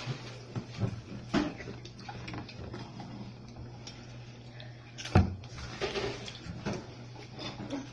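A hand digging into a bowl of Takis and Cheetos, giving irregular rustles and clicks, with one sharp knock about five seconds in.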